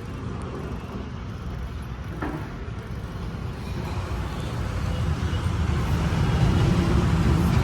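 Road traffic: a motor vehicle's low engine rumble, growing steadily louder through the second half.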